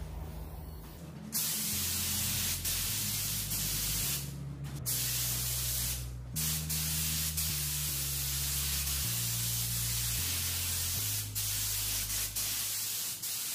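Gravity-feed compressed-air spray gun hissing as paint is sprayed onto a truck grill, the air cutting off briefly twice as the trigger is let go between passes.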